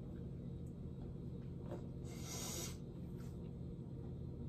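Quiet room tone with a steady low hum, and a brief soft hiss about two seconds in.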